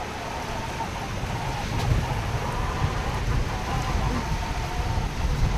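Steady rain in a thunderstorm, with a gusty low rumble of wind buffeting the phone's microphone. A faint wavering tone sits above the rain.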